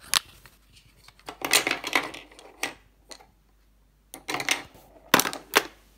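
Lipstick tubes being handled in a wicker basket: clicks and rattles of the tubes knocking together and rustling against the wicker, in several short bursts with pauses between.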